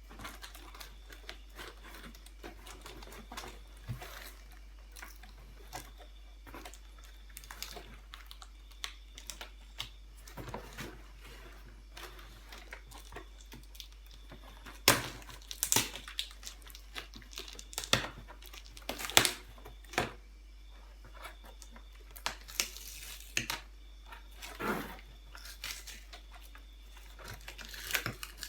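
Shipping packaging around a guitar being handled and pulled open: irregular crinkling, tearing and sharp clicks and knocks, getting louder and busier about halfway through.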